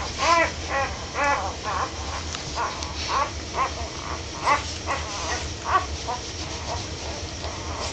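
Newborn Great Dane puppies squeaking and whimpering: a quick string of short, high, rising-and-falling cries, loudest in the first second.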